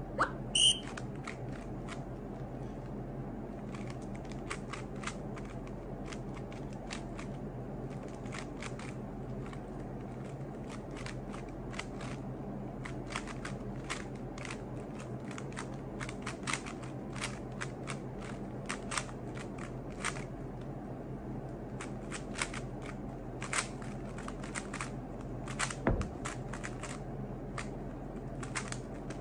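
Rubik's cube being turned quickly in a timed solve: many short, irregular plastic clicks of the layers turning, over a steady low hum.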